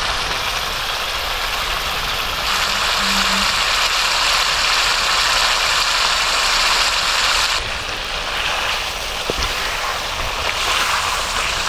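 Pork curry frying in a pan, a steady loud sizzle whose level shifts a few times.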